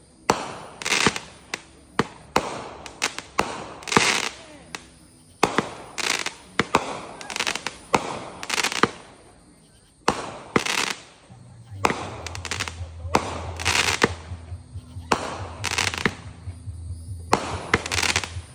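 Fireworks going off in quick succession: sharp bangs, each followed by crackle and echo, sometimes several a second. A low steady hum joins about twelve seconds in.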